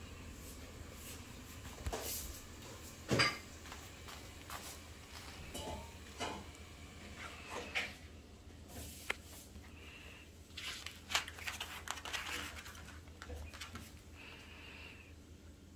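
Light rustling and scattered small clicks and knocks as a dog and a kitten shift about on a cushion and a cat wand toy with a plastic streamer is jiggled over them, with one sharper knock about three seconds in.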